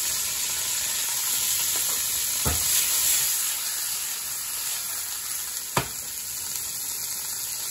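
Broccoli and garlic sizzling steadily in hot olive oil in a frying pan. The pan is tossed, with two short knocks, the louder one about six seconds in.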